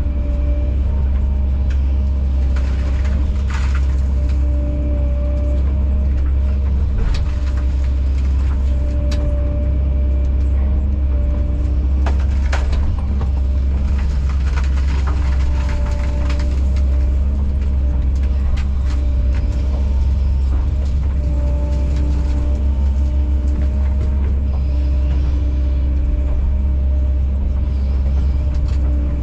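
Kobelco SK210 excavator's diesel engine running steadily at working speed, a deep drone with higher tones that rise and fall as the machine works, and a few scattered knocks and scrapes.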